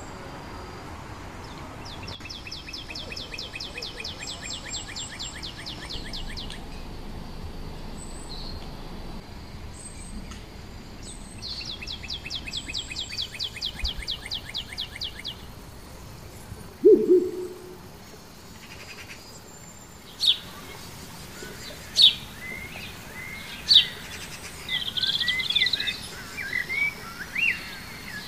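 Wild birds calling in woodland: two long, fast trills in the first half, a single short low call a little past the middle, then loud, sharp descending calls about every two seconds and a burst of chirping near the end.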